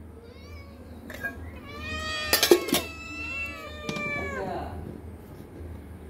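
Several cats meowing at once, their calls overlapping and loudest about two to three seconds in, with a few sharp clicks among them.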